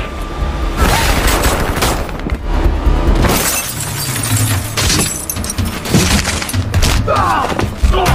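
Action-film soundtrack: car window glass shattering in repeated sharp crashes as the car is fired on, over a music score.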